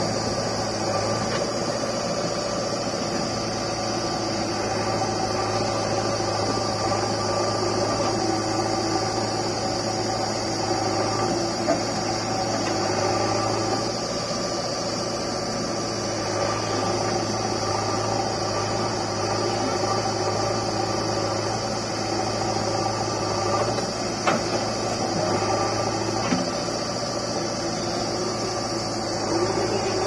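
Diesel engines of a JCB 3DX backhoe loader and a New Holland tractor running steadily while the backhoe loads soil into the tractor's trailer. A few short knocks stand out, about a third of the way in and twice near the end.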